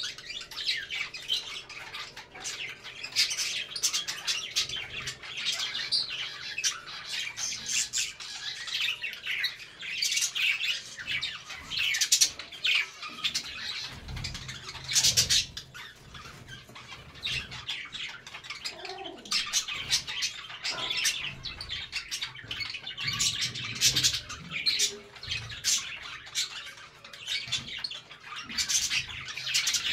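A group of budgerigars chattering, with a continuous stream of short chirps and harsh squawks.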